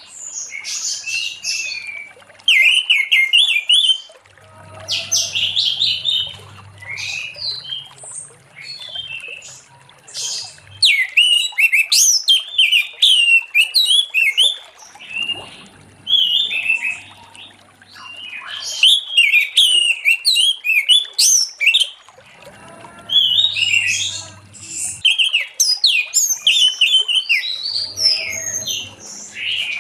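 Orange-headed thrush singing a long, varied song of rapid high whistles and chirps, in phrases of a few seconds with short pauses between them.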